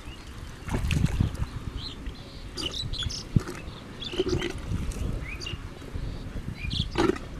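A hand digging and squelching through wet mud in an eel hole, in irregular wet bursts. A few short high chirps sound through it.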